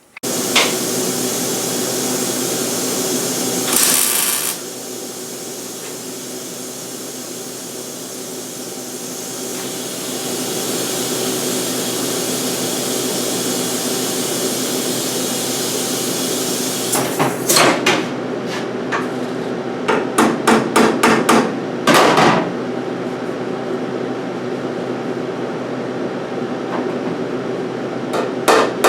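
Welder laying a bead on the sheet-metal rust-repair patch in a pickup cab: a steady crackling hiss over a faint electrical hum. Around two thirds through it breaks into a run of short stops and starts, then runs steadily again.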